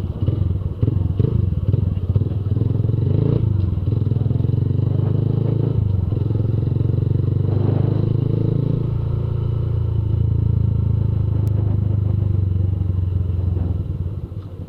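Honda CG Fan 150's single-cylinder four-stroke engine running through a Fortuna Mini Trioval F1 aftermarket exhaust while the bike is ridden. The exhaust note is steady and low and drops twice, about six and nine seconds in, then eases off near the end.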